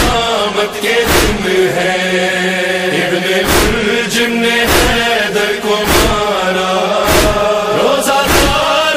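Voices chanting an Urdu nauha, a Shia mourning lament, in long held and bending lines. Heavy thumps keep a steady beat about every second and a bit.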